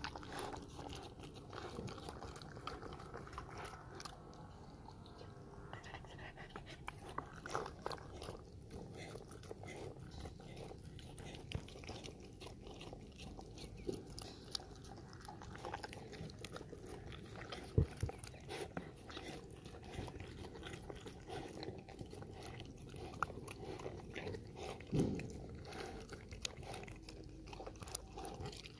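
Dog eating cooked rice from a plastic bowl up close: steady chewing and wet mouth clicks, with a couple of sharper clicks in the second half.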